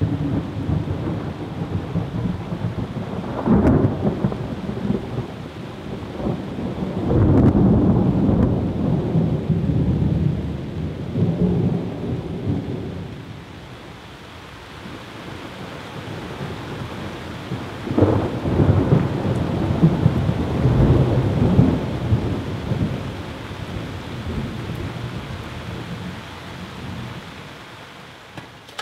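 Thunder rolling in long low rumbles, with sudden loud claps about 3 s in and again about 18 s in, dying away near the end.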